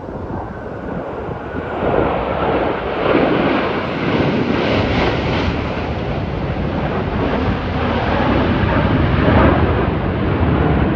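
Jet engine noise from a formation of four fighter jets flying overhead, swelling about two seconds in and then staying loud and steady. Wind buffets the microphone.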